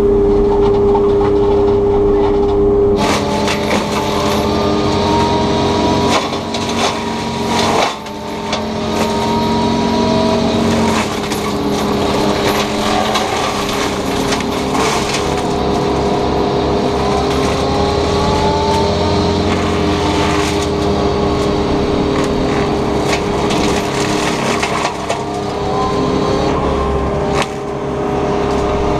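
Takeuchi TB290 excavator's diesel engine and hydraulics driving an FAE forestry mulching head. About three seconds in, the head bites into brush and a loud shredding noise sets in over the steady machine tone, with sharp cracks of wood now and then as it grinds.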